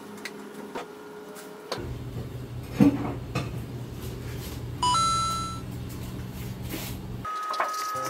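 Cloth wiping and handling on a stainless-steel range hood: scattered light clicks and a sharp knock about three seconds in, over a steady low hum. About five seconds in a bright ringing ding sounds, and a music tune begins near the end.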